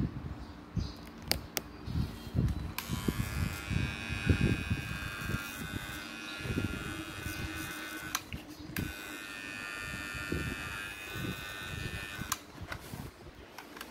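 Transformer soldering gun switched on for soldering wires to a drill's trigger switch, giving a steady electrical hum. It comes on about three seconds in, stops briefly around eight seconds, runs again and cuts off near the end, with light knocks of handling underneath.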